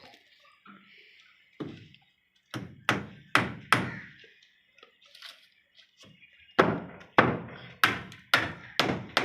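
Repeated heavy blows on a solid object, each sharp and quickly fading: a run of five quick strikes a few seconds in, then a second run of about five near the end, roughly two a second.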